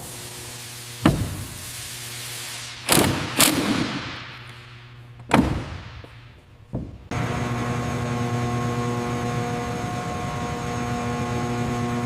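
A handful of sharp, heavy impacts, several trailing off in a fading hiss, then a steady machine hum that starts abruptly about seven seconds in and holds one even pitch.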